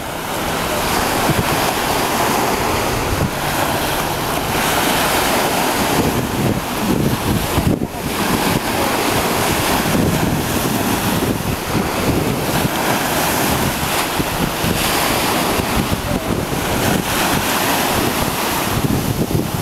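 Wind buffeting the microphone over the steady wash of small waves breaking in shallow water.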